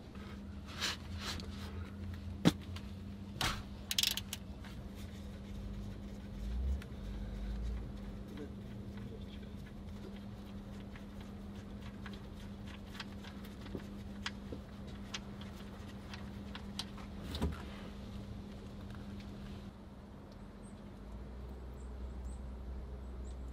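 Scattered metallic clicks and knocks as the drain plug of a Ford Transit Connect's oil pan is worked loose and unscrewed, over a steady low hum.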